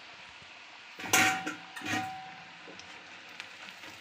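Gujiyas frying in hot ghee in a kadai, a steady low sizzle, with a metal wire skimmer knocking against the pan twice, about one and two seconds in, each knock ringing briefly.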